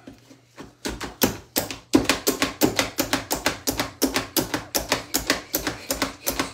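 Hand-plunger food chopper being struck over and over on top, its blades clacking down through apple pieces: a fast, even run of sharp strikes, about four or five a second, starting about a second in.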